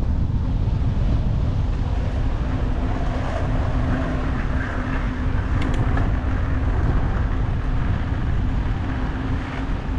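Wind buffeting the microphone in a steady low rumble, with a faint steady hum joining about two and a half seconds in and a couple of light ticks near the middle.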